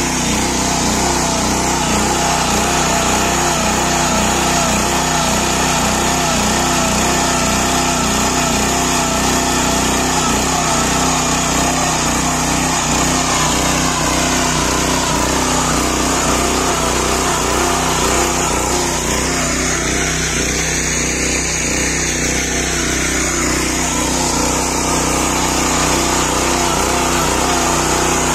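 Small engine of a walk-behind rotary tiller running steadily under load while its tines churn through the soil.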